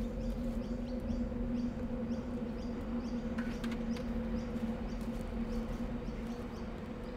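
Outdoor ambience: a small bird or insect gives short high chirps about twice a second over a steady low hum.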